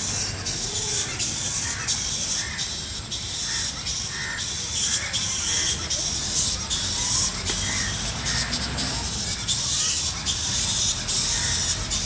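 Outdoor ambience: a steady high-pitched hiss over a low rumble, with faint short calls repeating about once a second through the middle.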